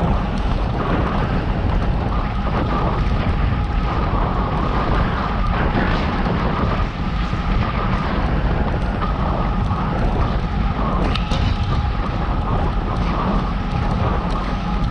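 Steady, loud wind rumble buffeting the microphone of a camera riding along on a moving bicycle.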